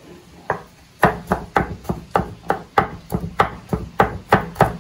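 Kitchen knife chopping garlic on a cutting board: one chop, then a steady run of quick chops, about three or four a second, from about a second in.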